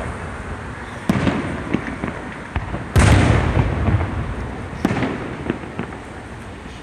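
Fireworks display shells bursting overhead: a bang about a second in, the loudest, deep booming burst at about three seconds with a long rolling rumble after it, and another bang near five seconds, with smaller pops and crackles in between.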